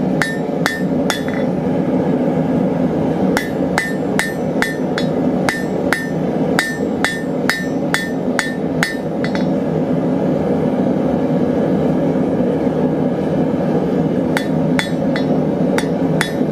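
Hand hammer striking a hot square steel bar on the anvil while drawing it out, each blow ringing. There are three quick blows, then a run of blows at about three a second for some six seconds, a pause of about five seconds, and another run near the end. Under it the forge runs with a steady rush.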